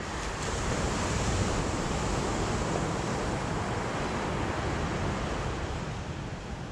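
Sea waves breaking on the shore: a swell of surf noise that builds about a second in and eases off near the end.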